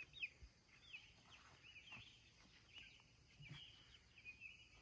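Faint, high chirping calls of laying hens: short falling notes repeated every fraction of a second, with a few soft knocks.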